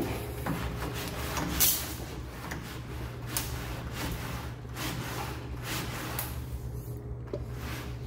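Closet door being swung and its doorknob handled: a series of short rubs and knocks, the sharpest about a second and a half in, over a low steady hum.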